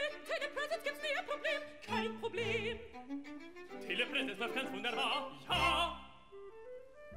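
Operatic singing with wide vibrato over a live orchestra with strings, in short phrases that fade out near the end.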